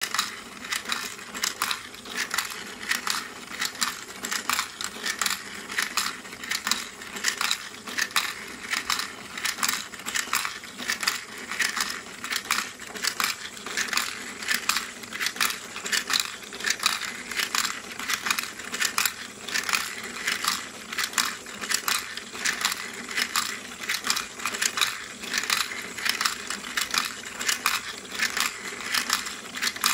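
Glass marbles clicking and clattering as they drop and roll through the white plastic steps of a motor-driven marble machine, about two to three clicks a second. A steady low hum from the small DC motor and its gear drive runs underneath.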